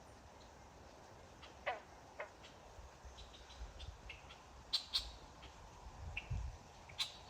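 Scattered short bird chirps and calls, including two quick downward-sliding calls about a second and a half in. A few sharp clicks come near the middle and end, over a low rumble.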